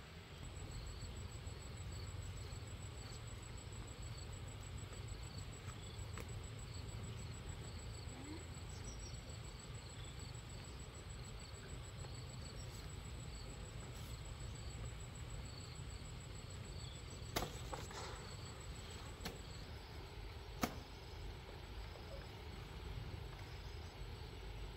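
Insects, likely crickets, trilling steadily at a high pitch over a low rumble, with a few sharp clicks in the last third.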